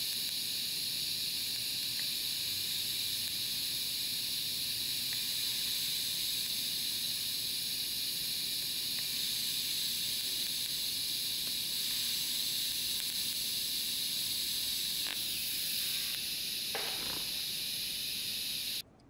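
TIG welding arc on mild steel, a steady high hiss as filler rod is fed into a gap in a poor fit-up joint. The arc cuts off suddenly near the end.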